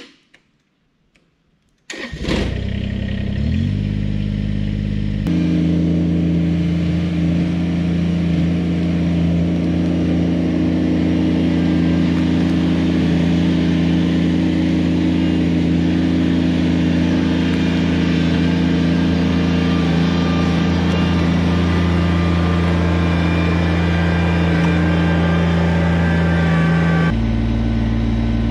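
Kubota BX23S subcompact tractor's three-cylinder diesel engine starting up about two seconds in and idling briefly. At about five seconds in it is throttled up and runs steadily at the higher speed, then drops back to a lower speed near the end.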